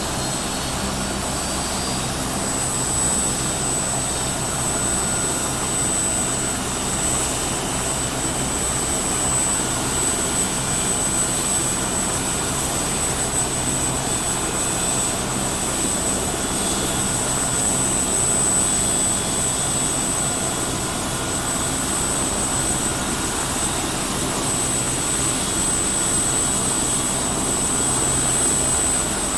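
Helicopter running steadily: a constant rush of engine and rotor noise with a low hum and a steady high-pitched whine.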